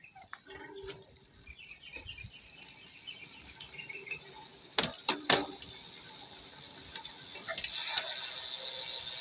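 Three-pawl bicycle freehub ratcheting as the wheel freewheels: scattered clicks, two sharp knocks about five seconds in, then a steady high buzz of rapid clicking near the end.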